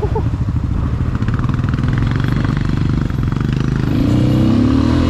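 ATV engine running steadily off-road, then revving higher about four seconds in.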